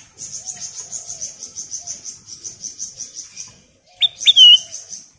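Ruby-throated bulbul (kutilang emas) calling: two loud, sharp whistled notes about four seconds in. Before and after them runs a steady, rapid, high-pitched pulsing trill of about seven pulses a second.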